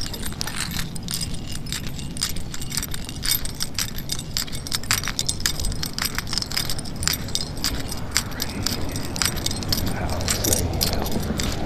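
A jangling rattle of small hard objects, quick irregular clicks over a steady low rumble.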